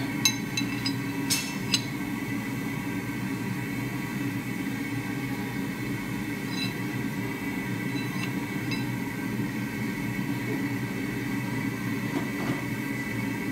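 Steel clinking and ringing as a forged hammer head and drift are handled: several sharp metal-on-metal clinks in the first two seconds and a few lighter ones from about six to nine seconds in. Under them runs a steady low rumbling drone of workshop noise.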